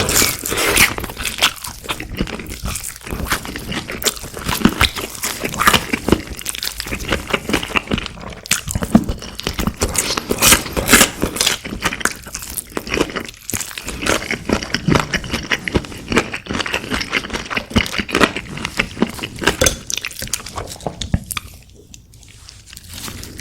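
Close-miked eating of crispy fried food: dense, irregular crunching and chewing with crackly bites, easing off briefly near the end.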